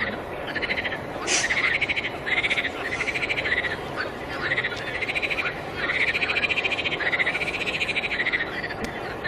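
Frogs calling: a run of rapid pulsed croaks, one after another in quick succession.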